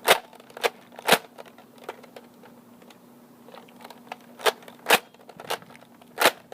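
Nerf Elite Ruckus ICS-8 spring blaster being slam-fired, with the trigger held while the priming handle is pumped. It gives a series of sharp plastic clacks, shots coming about half a second apart in two runs with a pause of about two seconds between them.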